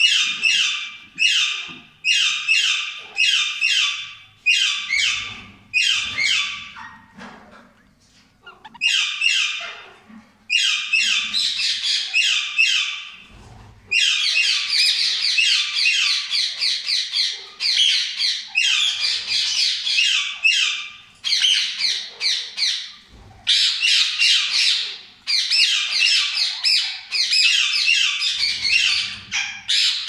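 Rose-ringed parakeets calling inside a nest box: a rapid, raspy chattering in short bursts about once a second, turning almost continuous after about fourteen seconds.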